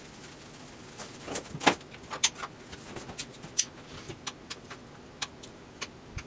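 Irregular light clicks and knocks of hand tools and small parts being handled on a transmission under disassembly. The loudest knocks come between about one and a half and two and a half seconds in.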